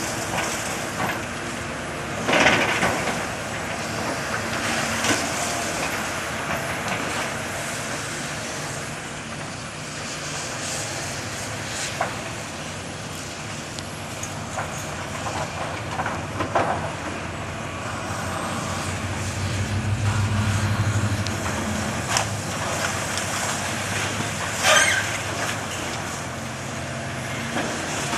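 Demolition excavator's diesel engine running steadily, working harder for a couple of seconds about two-thirds of the way through. Its steel jaws tear at the building, with several sharp crashes of breaking and falling metal and masonry, the loudest near the start and near the end.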